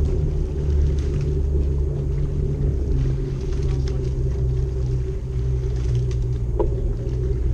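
Steady low rumble with a low droning hum underneath.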